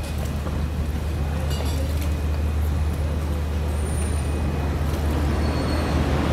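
Ferry's engine running with a steady low hum that grows slightly louder as the boat berths.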